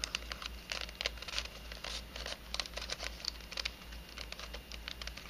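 A 3D-printed nylon helicopter-cube twisty puzzle being turned by hand: its pieces click and scrape in quick, irregular runs as the faces rotate through a sequence of moves.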